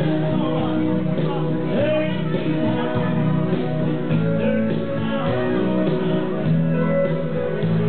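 A person singing into a handheld microphone over guitar-backed music, the voice and music coming through the bar's sound system.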